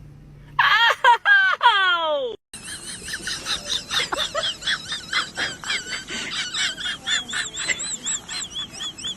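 Animal calls: a quick run of loud falling calls that breaks off suddenly, then rapid high chirping repeated several times a second.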